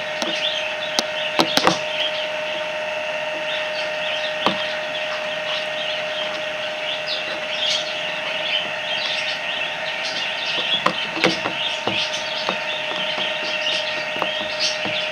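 Birds chirping steadily in the background, with scattered sharp clicks and snaps here and there.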